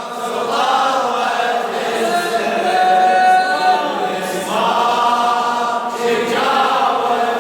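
A chorus of voices chanting the refrain of an Iraqi Arabic latmiya (Shia lament), with long held notes and no instruments.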